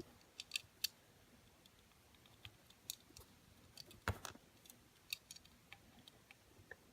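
Faint, scattered small clicks and taps of die-cast toy cars being handled, with one sharper tap about four seconds in.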